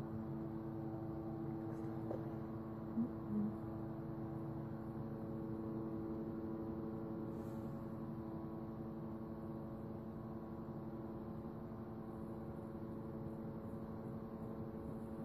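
Steady low drone of several held tones sounding together, unchanging in pitch and level throughout.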